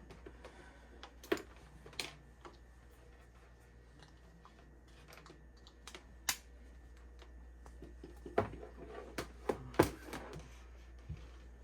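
Scattered short plastic clicks and knocks from handling a warm-mist humidifier's parts, irregular and sparse, with a cluster of louder knocks near the end.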